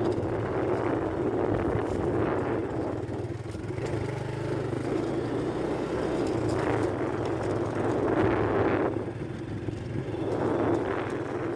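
A motor vehicle's engine running steadily, heard from on or near the moving vehicle, with a constant low hum and rushing noise throughout.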